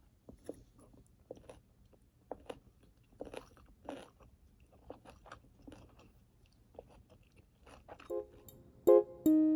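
Soft, irregular crunches and clicks, a few each second; about eight seconds in, gentle piano-like background music begins.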